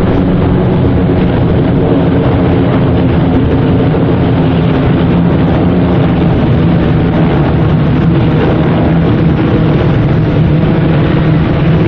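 Steady drone of a large formation of Van's RV light aircraft, their piston engines and propellers running together as they pass overhead.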